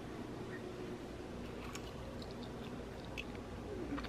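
Faint chewing of a peanut butter and walnut stuffed date, with a few soft mouth clicks over a low room hum.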